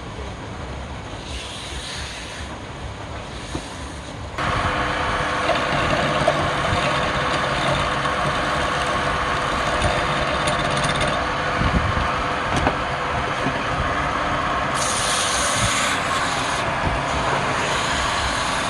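A woodworking power tool running. The noise jumps to a much louder, steady level about four seconds in, with high hissing that comes and goes.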